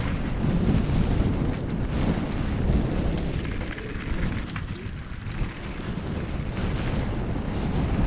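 Wind buffeting the microphone over the rumble of mountain bike tyres rolling down a dirt trail, with a few faint clicks.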